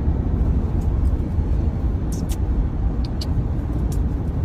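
Steady low rumble of a moving vehicle heard from inside the cabin: engine and road noise, with a few faint clicks in the middle.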